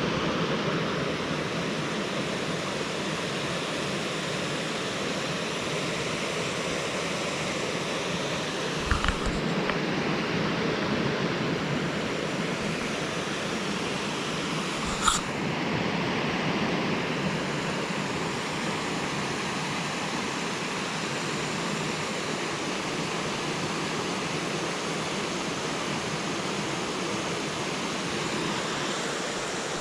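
Steady rushing of a river's flowing water, with two brief knocks near the middle.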